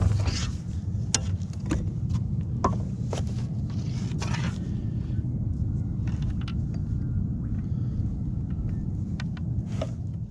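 Knocks and clicks of a landed flathead and gear being handled on a plastic kayak, mostly in the first half and again near the end, over a steady low rumble.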